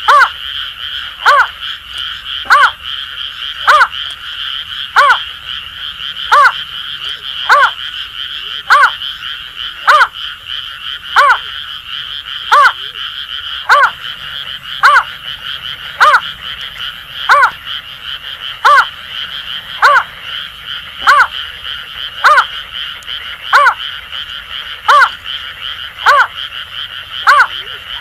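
Greater painted-snipe giving a steady series of short hooting notes, one about every 1.2 seconds, over a continuous chorus of Asian grass frogs calling.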